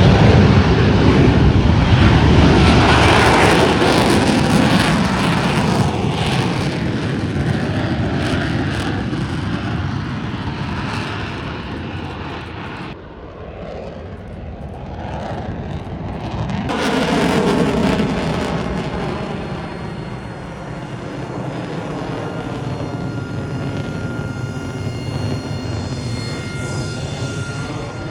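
Aircraft engine noise of a military airplane flying past: loud at first, fading around the middle, then swelling again with a shifting pitch as it comes by once more.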